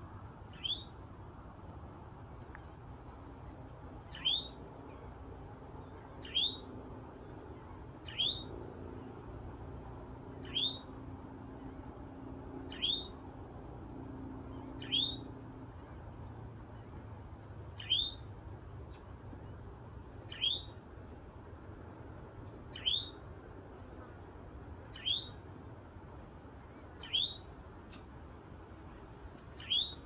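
Eastern towhee repeating its short rising 'chewink' call about every two seconds, over the steady high drone of insects.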